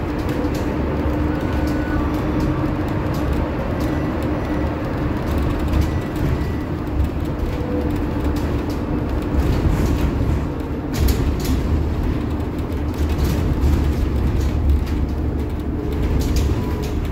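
Interior ride noise of a moving Scania/Higer Fencer F1 battery-electric bus: continuous low road rumble with a steady hum. A cluster of short rattles comes about eleven seconds in.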